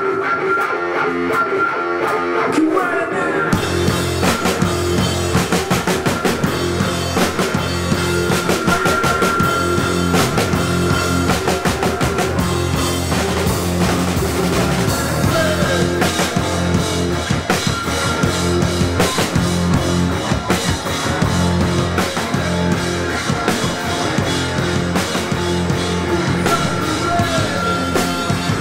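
Rock band playing live: electric guitar alone at first, then the drums and bass guitar come in about three and a half seconds in and the full band plays on with a steady beat.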